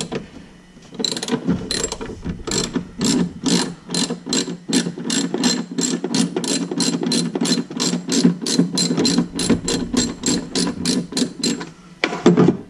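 Hand socket ratchet wrench clicking as its pawl runs over the teeth on the back-swings while turning a nut on a car's soft-top mechanism, in an even run of quick strokes, about three or four a second. The clicking stops shortly before the end, followed by a brief louder sound.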